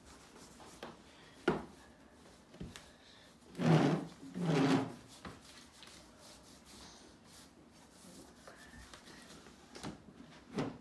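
Hands rubbing salt and brown sugar into raw eel fillets on a board: faint rubbing, with a sharp knock about a second and a half in and two louder bumps around four seconds in.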